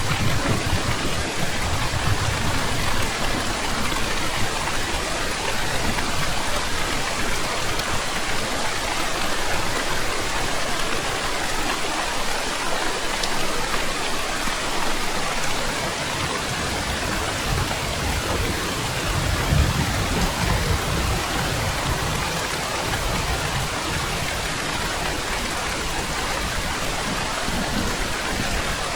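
Heavy rain falling steadily, with low rolls of distant thunder near the start and again about twenty seconds in.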